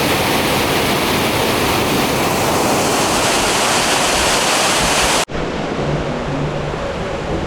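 Waterfall rushing in a loud, steady roar. About five seconds in it cuts off abruptly to a duller, quieter rush of water.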